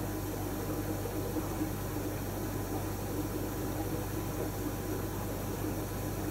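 Steady bubbling of aquarium aeration in water over a low, even hum of fishroom equipment.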